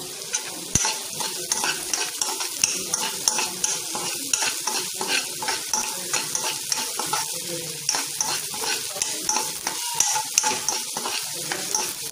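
Chopped onion sizzling in hot oil in a kadhai while being fried toward golden brown. A steel spoon stirs it, scraping the pan again and again over the hiss.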